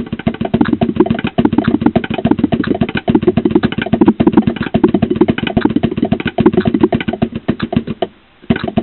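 Drum kit played with sticks: a fast, dense run of strokes in a swung pattern moving between drums of different tone. The playing stops briefly about eight seconds in, then starts again.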